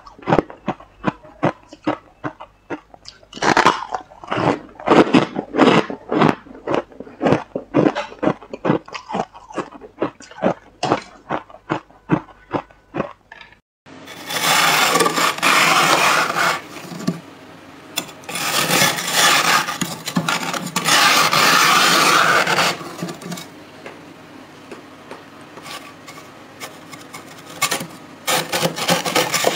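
Freezer frost being bitten and chewed close to a microphone, in many quick crunches. About fourteen seconds in this gives way to a metal spoon scraping frost off a freezer's inner wall, in three long scrapes.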